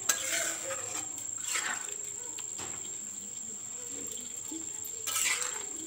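A spoon stirring thick chicken and potato curry in a steel kadai, a few short wet scraping strokes, over a steady high-pitched insect trill.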